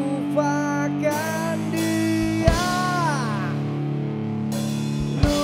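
Punk rock band playing a song: electric guitars hold sustained notes under a melody line that slides down in pitch, with a sharp drum hit about two and a half seconds in and another near the end.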